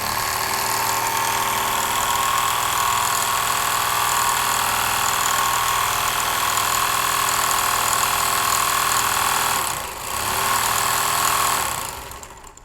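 Overlock machine running at speed and noisy. It dips briefly about ten seconds in, runs again, and winds down near the end. The noise comes from the 'chipiya' part having been removed, which the repairer says lets the looper part rattle and knock as it turns.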